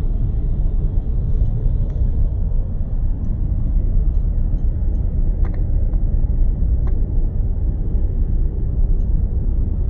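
Car driving at motorway speed, heard from inside the cabin: a steady low rumble of road and wind noise, with two faint clicks around the middle.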